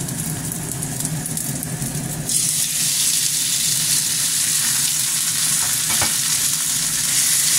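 Shallots and garlic frying in a little oil, then about two seconds in raw chicken pieces are tipped into the hot pan and the sizzle jumps to a louder, steady hiss.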